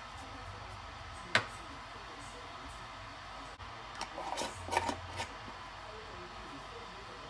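A metal tin set down on a countertop with one sharp click, then a metal screw lid being twisted onto a glass jar: a short run of scraping and clicking about four to five seconds in.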